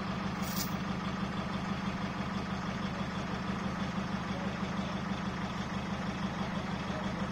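A large engine idling steadily with an even, fast throb.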